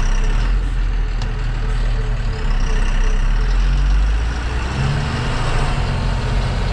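Tata tipper truck's diesel engine running as the truck reverses, heard from inside the cab; the engine note rises about five seconds in.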